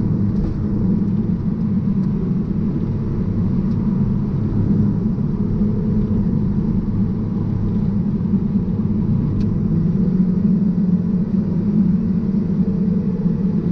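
Mazda MX-5's engine running steadily under load with tyre and road noise, a low drone heard from inside the cabin.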